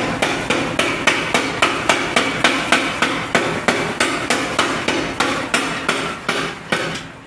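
A 3 kW power hammer pounding a red-hot steel bar in rapid, even blows, about three to four a second, drawing out its tip into a crowbar blade. The blows weaken and stop shortly before the end.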